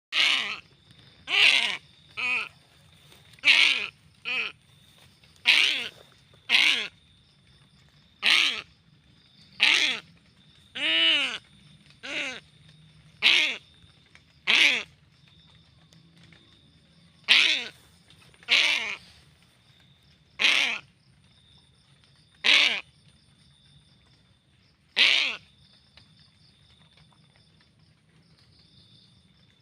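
A parent bird giving harsh, repeated alarm calls, one every one to two seconds, in agitation at being disturbed near its nest or young; the calls stop near the end.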